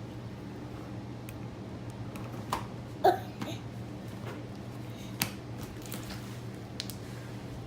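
Slime being handled and blown into a bubble: a few small clicks and one sharper pop about three seconds in, over a steady low hum.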